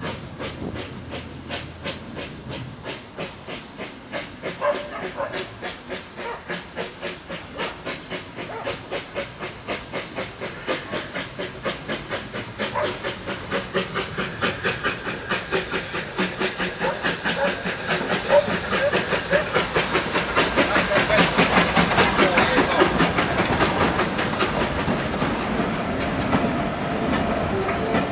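Small steam tank locomotive approaching with a train of vintage carriages, its exhaust beating steadily with a hiss of steam and growing louder as it nears. Near the end the carriages roll past.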